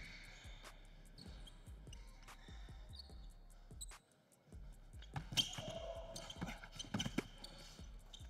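A basketball being dribbled on a hardwood gym floor, a run of bounces that stops briefly about four seconds in, then starts again.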